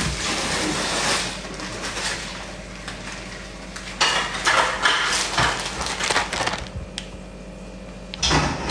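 Dishes, pots and cutlery clattering as they are handled at a kitchen counter, in a run of sharp clinks and knocks from about four seconds in and again near the end. Before that, a hiss of running water fades out.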